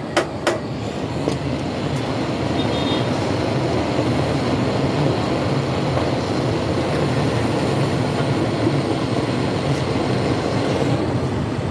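Two last hammer strikes on metal in the first half second, then a steady, even rumbling noise from a running machine or vehicle.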